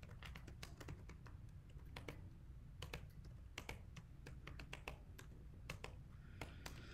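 Faint typing on laptop keyboards by two people at once: irregular soft key clicks.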